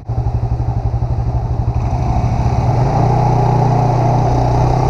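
Small Yamaha scooter engine running as it rides, heard close up. For the first few seconds there is a choppy low rumble; from about three seconds in the engine settles into a steady hum.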